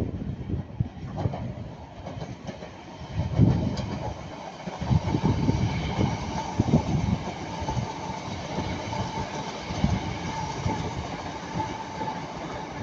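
A pair of coupled Northern Class 323 electric multiple units passing, wheels clattering unevenly over the rail joints under a steady faint electric whine.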